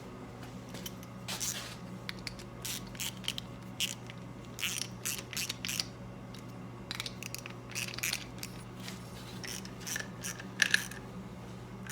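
Hand tools and small steel fasteners being worked: irregular metal clicks, taps and short scrapes as bolts and nuts are fitted and tightened on a voltage regulator bracket, over a steady low hum.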